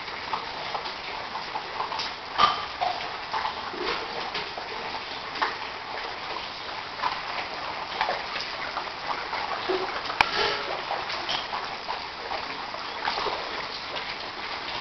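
Rushing floodwater, overflowing rainwater from a canal streaming along a road, makes a steady noise with scattered splashes through it.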